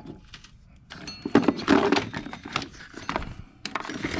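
Short knocks and rubbing as an old serpentine belt is worked off the engine's pulleys and pulled out of the engine bay, quiet for about the first second.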